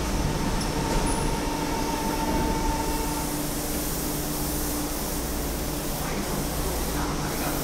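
Tozai Line subway train standing at an underground platform, giving a steady low rumble and hum. Two thin held tones run over it; the higher one stops about three seconds in, while the platform screen doors and train doors open.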